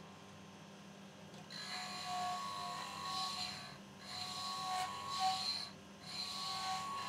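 Steel meat grinder blade pressed against a motor-driven grinding wheel to sharpen it: a rough, ringing grind in three passes of about two seconds each, the first starting about a second and a half in, over the steady hum of the running motor.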